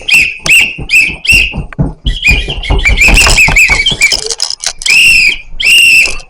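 Hand-held whistle blown loudly in a string of short toots, then a quick run of rapid toots, then two longer blasts near the end.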